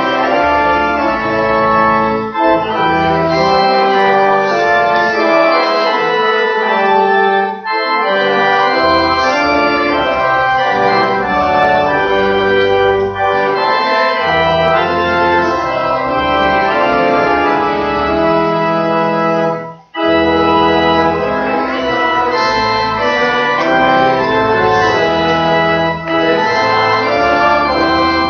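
Church organ playing a sequence of held chords that change every second or so. The sound breaks off briefly about twenty seconds in, then resumes.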